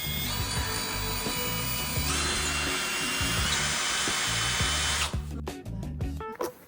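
A small electric motor running steadily for about five seconds, its pitch stepping up once about two seconds in, then cutting off; background music with a steady beat underneath.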